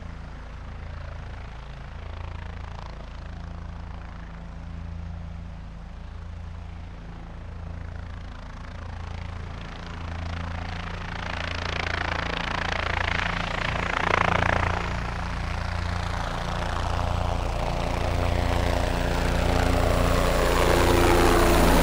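Quadcopter camera drone's propellers, a steady buzzing hum that grows louder toward the end as the drone comes closer, with a brief louder surge about two-thirds of the way in.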